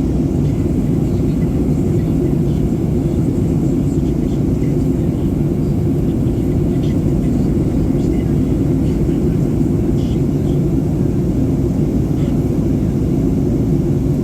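Steady cabin noise inside a Boeing 737-800 in descent: a constant low rush of airflow over the fuselage and the hum of its CFM56 engines, holding an even level throughout.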